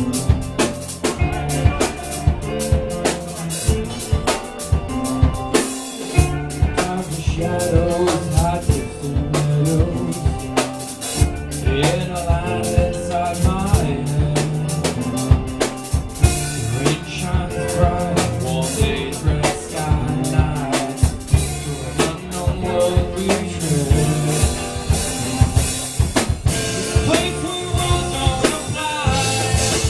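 Live band playing amplified music: a drum kit keeping a steady beat of kick and snare hits under electric guitar and bass, with a singer's voice over it.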